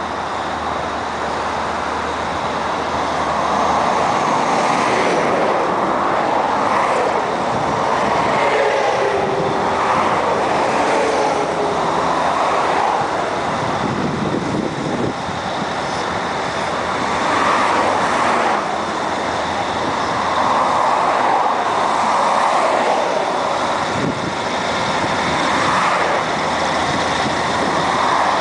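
Caterpillar 16G motor grader's diesel engine running as the grader spreads and levels loose gravel, coming closer. Motorway traffic passes alongside in repeated swells of road noise.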